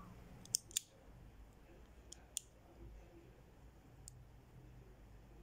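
Light, sharp clicks from a Guevara twin-jet torch lighter being handled: two quick pairs of clicks, then a single click about four seconds in.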